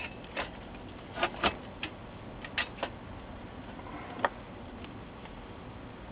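Scattered light metallic clicks and taps, about seven over the first four and a half seconds, as a sheet-metal RF shield is fitted onto an LCD monitor's metal chassis and a screwdriver is picked up.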